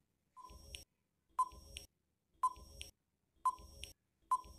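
Quiz countdown-timer sound effect: five short electronic beeps, evenly spaced about one a second.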